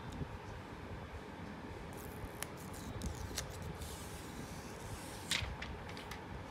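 Thin plastic protective film being peeled off a smartphone screen: soft crinkling and rustling with scattered small clicks, loudest in a short crackle about five seconds in.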